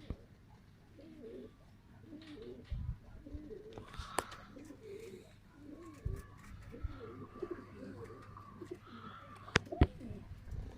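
Domestic pigeons cooing, many short wavering low calls overlapping, with a few sharp clicks about four seconds in and again near the end.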